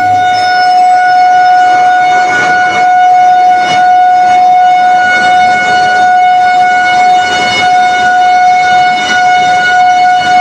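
Electric locomotive's horn sounding one long, unbroken, steady-pitched blast.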